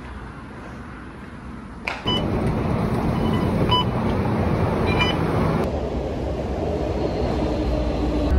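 Engine and road rumble inside a moving bus, starting suddenly about two seconds in, with several short electronic beeps. Later it gives way to the steady rumble of an MRT train running, growing louder toward the end.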